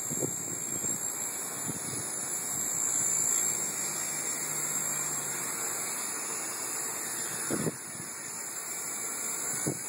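Small electric RC helicopter's motor and rotor whining steadily with a high-pitched buzz and a rush of blade air. There is a brief knock about three-quarters of the way through.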